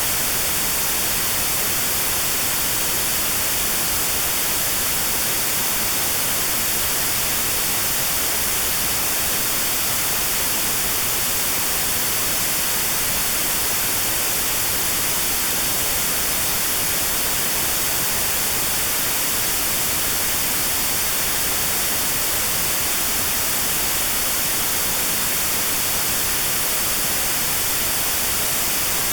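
Steady synthetic white noise with a narrow band around 4 kHz cut out (notched white noise for tinnitus sound therapy), an unbroken hiss with no change.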